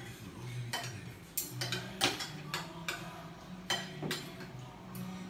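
Spoons and forks clinking and scraping against plates as people eat: a scattered series of short, light clicks.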